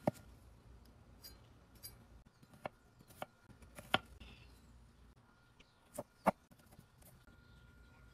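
A kitchen knife slicing and chopping an onion on a wooden cutting board: a handful of irregular, sharp knocks of the blade striking the board.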